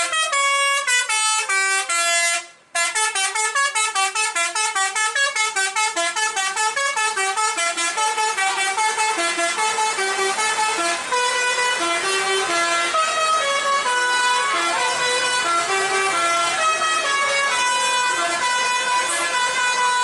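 Basuri multi-tone 'telolet' horns on tour buses playing fast melodic runs of stepped notes, with several horns answering one another. The sound breaks off for a moment about two and a half seconds in, and from about halfway a held note sounds under the running melody.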